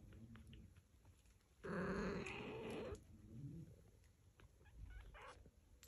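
A cat gives one pitched call lasting a little over a second, starting just under two seconds in, among faint small clicks and rustling.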